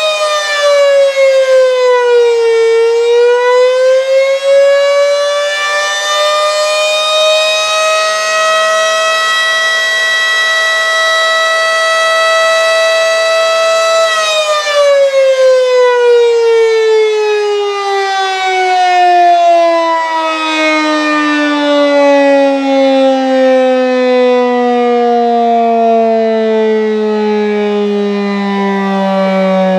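Fedelcode Model 5 outdoor warning siren sounding the attack signal. Its pitch dips, climbs back and holds for several seconds, then about halfway through the siren winds down in a long, steady fall in pitch. Its weak tone comes from an underpowered VFD driving the motor, not from a bad motor, as the uploader explains.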